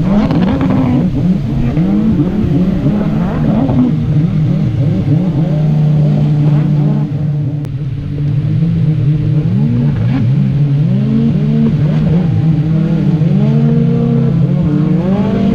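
A vehicle engine running and revving, its pitch rising and falling repeatedly and holding steady for a couple of seconds around the middle.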